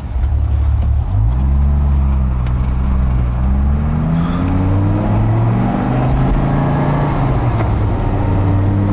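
Dodge Viper's 8.0-litre V10 pulling under acceleration, heard from inside the cabin. The revs dip briefly at the start, climb again about a second in, then rise slowly and level off.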